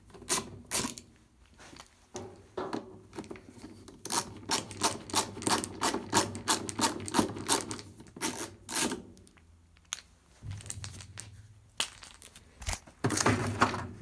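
A screwdriver clicking in quick runs, about three to four clicks a second, as screws are undone from a washing machine's plastic control housing. Near the end there is a louder clatter of plastic as the housing is opened.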